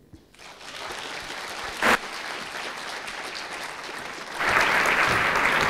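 Audience applauding, growing louder about four seconds in, with a single sharp knock about two seconds in.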